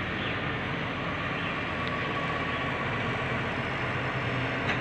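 Diesel engine of a Volvo wheeled excavator running steadily while it digs.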